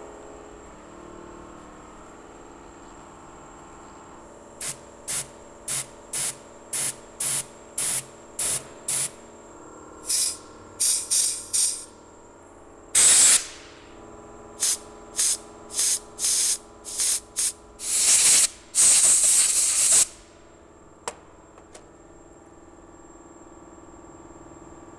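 Aerosol can of penetrating fluid spraying in short hissing spurts, about two a second, then longer sprays of up to a second or so, the loudest near the end of the run.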